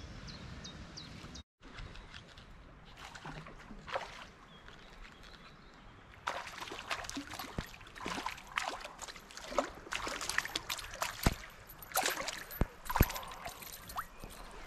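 Water splashing and sloshing as a hooked fish thrashes at the river's surface, a quick run of sharp splashes from about six seconds in.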